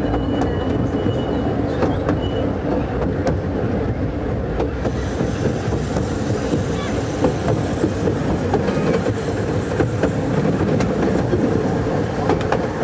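A 12¼-inch gauge miniature steam railway train running along the track: a steady rumble from the wheels with irregular clicks over the rails. A higher hiss joins about five seconds in.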